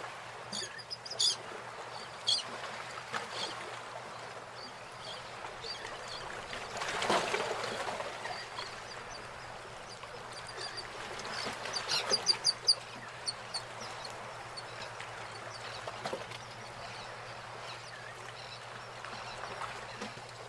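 Nature ambience: a steady background hiss with bird calls. Clusters of short, high chirps come about a second in and again around ten to thirteen seconds, and a louder, fuller call swells up around seven seconds.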